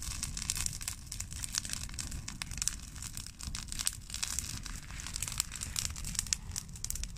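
Bonfire of cut olive branches crackling, with many small irregular pops over a steady low rumble.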